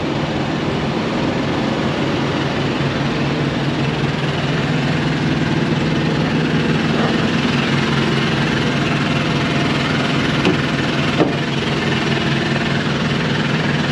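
A semi truck's auxiliary power unit (APU), a small diesel generator set, running steadily and a little loud, with a constant engine drone that does not change speed.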